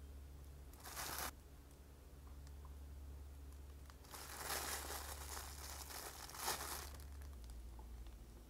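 Soft crinkling and rustling handling noise as makeup blending sponges are pressed into a clear plastic organiser tray: a short burst about a second in, then a longer stretch from about four to seven seconds, over a faint steady low hum.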